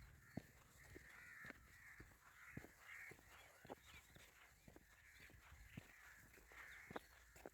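Crows cawing repeatedly, faint, with soft footsteps on a path about once a second.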